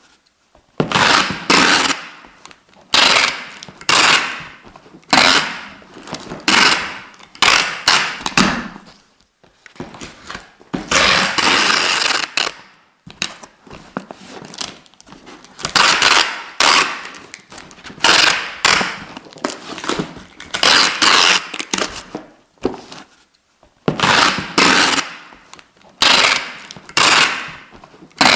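Adhesive tape being pulled off the roll in a series of quick rips, about one a second, each a loud rasping tear that starts sharply and fades, with one longer steady pull of about two seconds near the middle.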